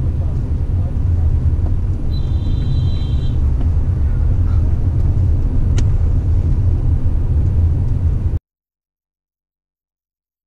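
Steady low rumble of a car's road and engine noise heard from inside the moving car. A faint high tone lasts about a second, starting about two seconds in, and a sharp click comes near six seconds. The sound cuts off abruptly about eight seconds in.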